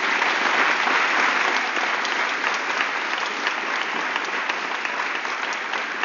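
An audience applauding: dense, steady clapping that gradually fades.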